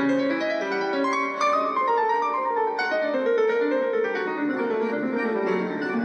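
Background piano music: a gentle melody of single notes stepping downward over a sustained accompaniment.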